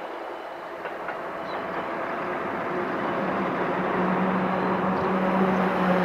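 Iida Line electric train approaching, its running noise growing steadily louder, with a low steady hum coming in about three seconds in.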